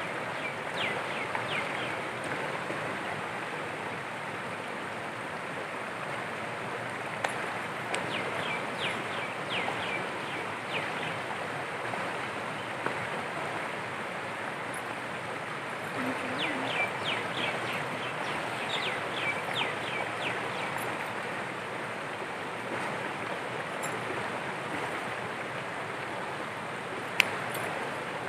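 A stream running over rocks, a steady rushing of water, with a bird calling in three spells of quick repeated chirps. A couple of sharp clicks stand out briefly, one near the end.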